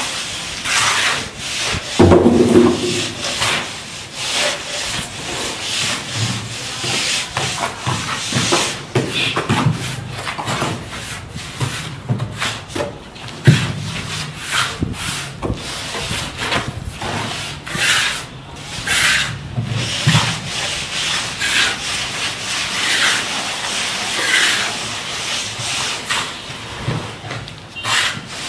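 Pointed steel trowel scraping and smoothing wet cement render on a wall in repeated irregular rasping strokes. A sharp knock about halfway through.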